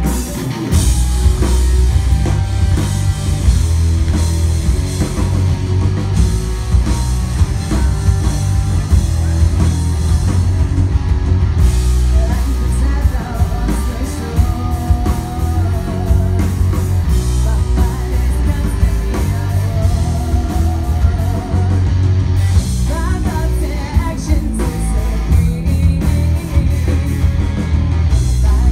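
Live rock band playing loud: electric guitars, bass guitar and drum kit, with a lead vocal. The full band comes in right at the start after a sparse guitar intro.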